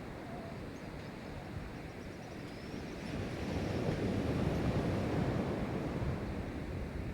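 Pacific Ocean surf breaking and rushing on the shore, a steady wash of noise that swells louder about three seconds in as a wave comes in, then eases near the end.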